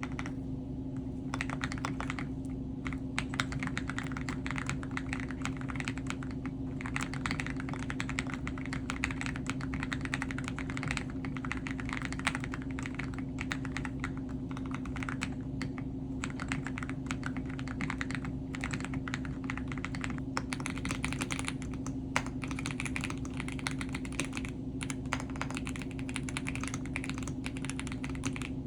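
Mechanical keyboard being typed on: a fast, continuous run of key clicks with a few short pauses, over a steady low hum.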